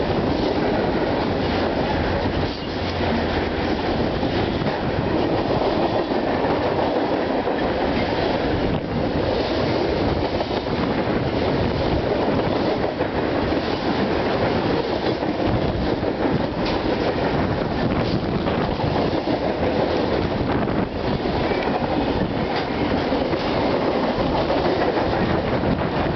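A BNSF manifest freight train's cars rolling past at close range, a steady loud rumble of steel wheels on rail with a run of clacks.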